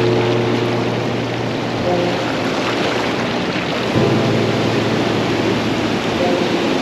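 River rapids rushing steadily over boulders in a gorge. Low sustained tones sound underneath and change pitch about every two seconds.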